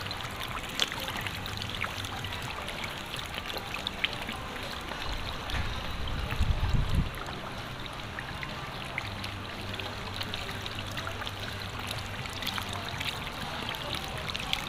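Koi pond water trickling and splashing, with many small sharp splashes from a dense crowd of koi churning at the surface. A brief low rumble about six seconds in is the loudest moment.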